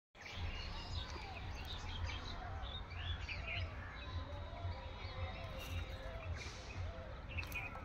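Several birds chirping and calling, with many short high chirps and a run of repeated lower arching calls, over a steady low rumble.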